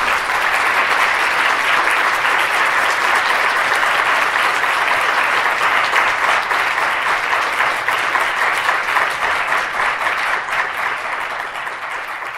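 Audience applauding: many people clapping steadily, beginning to die down near the end.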